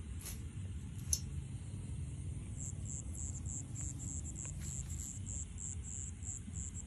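Crickets chirping in a regular series of short high chirps, about four a second, starting about two and a half seconds in. A steady low rumble runs underneath, and there is a single sharp click about a second in.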